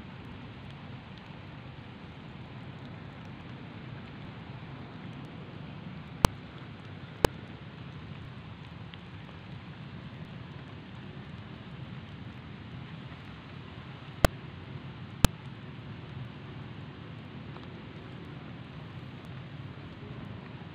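Steady outdoor background hiss, with four sharp clicks in two pairs, each pair a second apart.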